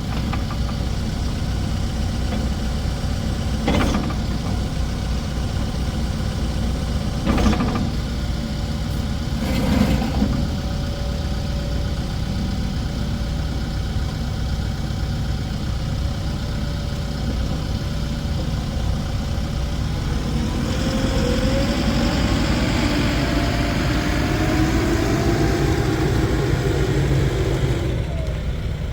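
Case 580N backhoe's four-cylinder diesel engine running steadily, with three short knocks in the first ten seconds. About two-thirds of the way through, the engine gets louder and a whine rises in pitch.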